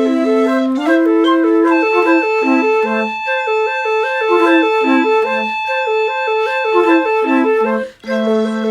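Flute music: several flutes of the piccolo, flute and alto flute family playing together. A low line runs in quick repeated stepwise figures beneath a high note that is held for about six seconds.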